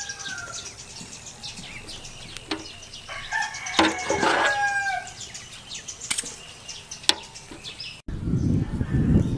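Chickens calling, with a rooster crowing once about four seconds in, plus a few sharp clicks.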